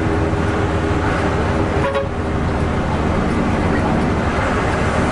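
Mitsubishi-engined medium bus heard from inside the cabin: the diesel engine drones steadily under road and tyre noise as the bus cruises. A brief knock about two seconds in.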